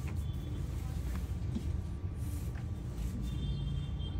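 Steady low background rumble, with faint soft rustles of a silk chadar being unfolded and draped, and a faint high tone twice, near the start and near the end.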